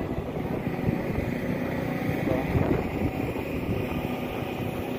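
Concrete pump truck's engine running steadily, with wind buffeting the microphone.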